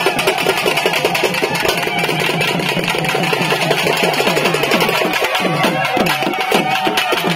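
Traditional Tamil temple-festival drums playing a fast, unbroken rhythm, with a wind instrument holding a long high note over them and drum strokes that bend down in pitch near the end.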